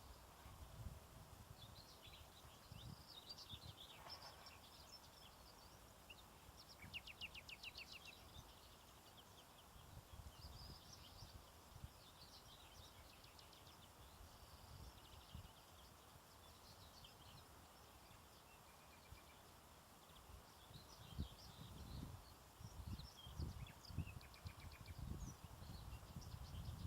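Several wild birds singing faintly, with a rapid trill of evenly repeated notes about seven seconds in. A low rumble comes and goes beneath them and grows stronger near the end.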